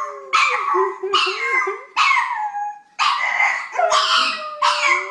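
Pug howling in a run of about six short yelping calls, each sliding down in pitch, with a person holding a low howl along underneath.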